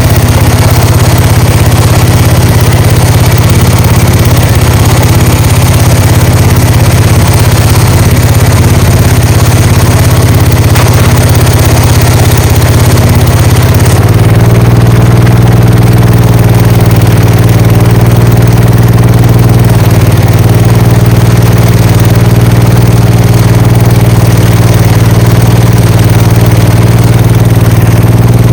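Gravely walk-behind tractor engine running steadily, loud and close, its note changing and evening out about halfway through.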